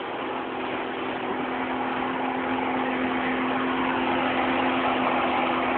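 Motorboat engine running steadily, a constant hum over rushing noise that slowly grows louder.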